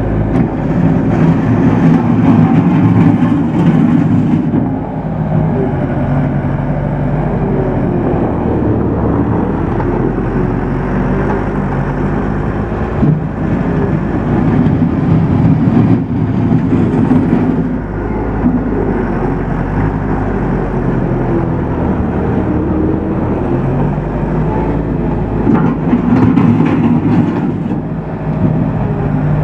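Bobcat 863 skid steer's rebuilt Deutz diesel engine running, its level rising and falling in louder spells a few seconds long, three times.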